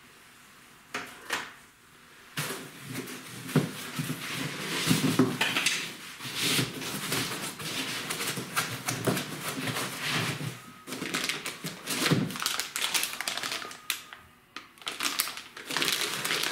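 Parts and foam packing inserts being handled inside a cardboard shipping box: an irregular run of rustles, scrapes and small clicks and knocks.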